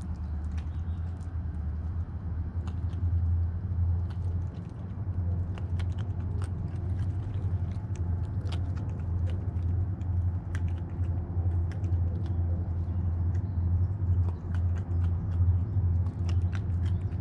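Raccoon crunching dry kibble close to the microphone: an irregular run of crisp clicks and crunches over a steady low hum.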